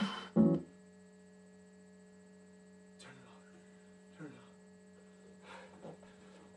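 Dance music cutting off, then a short loud thump, then a steady electrical mains hum with a few faint knocks and rustles of someone moving about.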